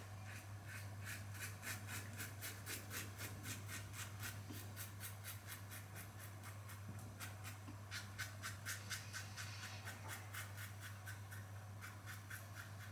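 Karve CB stainless safety razor with a Polsilver Super Iridium blade scraping through lathered stubble on the final pass: quick short strokes, about four a second, with a pause midway. A steady low hum runs underneath.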